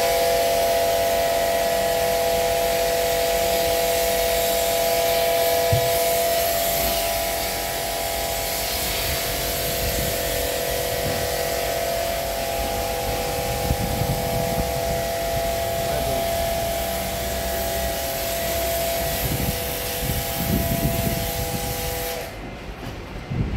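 Car-wash spray lance spraying snow foam onto a car: a steady hiss of spray with a steady whine from the machine, which both cut off suddenly near the end.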